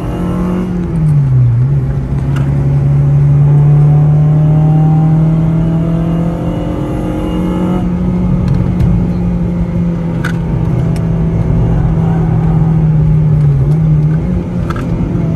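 Honda Civic Type R FD2's four-cylinder engine running hard on track, heard from inside the cabin. It holds a steady high note, with a brief dip in pitch about a second in and again near the end.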